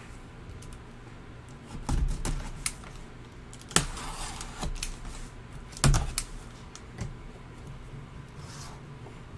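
Cardboard mini-helmet box handled with gloved hands and set on a tabletop: a series of sharp knocks and taps, the loudest about four and six seconds in, with a short scrape between them.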